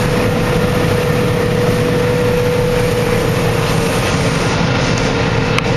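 John Deere 9650 STS combine running steadily while harvesting soybeans, heard from inside the cab, with a steady whine over the machine noise.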